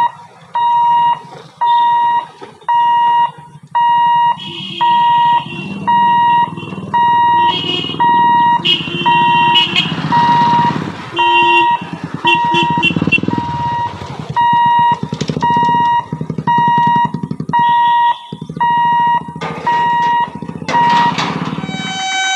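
Railway level-crossing warning alarm sounding an electronic beep, one steady tone repeating about every 0.8 seconds, which stops shortly before the end. Vehicle engines, a motorcycle among them, run underneath.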